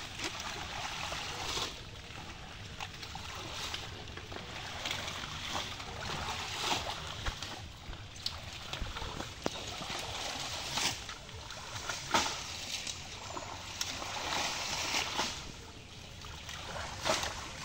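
Irregular splashing and sloshing of shallow water as people wade and pull water hyacinth up by hand.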